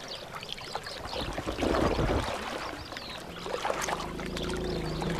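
Water sloshing and splashing as elephants wallow in a muddy waterhole. A low steady tone comes in near the end.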